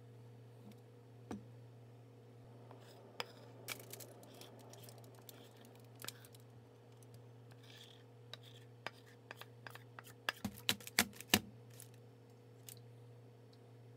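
Spatula scraping and knocking against a stainless steel mixing bowl while chocolate batter is poured into a foil-lined pan, with scattered clicks and a quick run of sharp knocks about ten to eleven seconds in. A steady low hum underneath.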